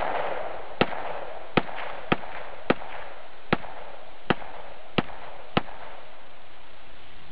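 Gunfire: about eight single shots fired at uneven intervals of roughly half a second to a second, over a steady hiss. The shots stop a little under two seconds before the end.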